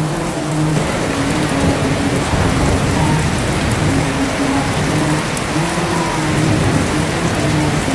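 Steady heavy rain, with a man's low voice chanting shalawat in long held notes beneath it.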